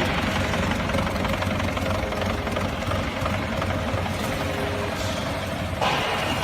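Hydraulic foam baling press running: a steady motor-and-pump hum. A brighter, louder noise joins near the end.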